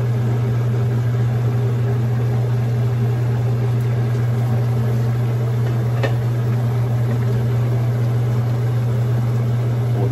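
Steady low mechanical hum with a faint tap about six seconds in.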